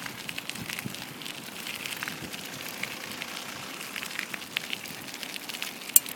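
A dog drying itself off on the ground after a swim: a steady crackling rustle of many small clicks, with one sharp click near the end.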